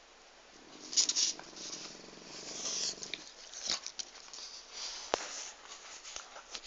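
A sleeping female pet snoring: one long snoring breath from about half a second in to about three seconds in, with a few sharp clicks after it.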